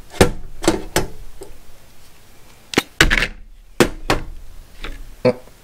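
Sharp plastic clicks and knocks from handling a Milwaukee 300-lumen LED flood light and swinging its rotating metal clip. There are about eight of them, irregularly spaced; one comes about five seconds in, just before the clip pops off.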